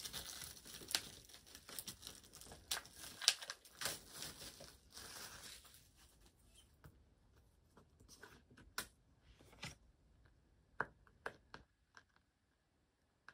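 Packaging on a boxed Blu-ray set being torn and crinkled by hand: dense crackling with small clicks for about the first half, thinning to a few scattered clicks near the end.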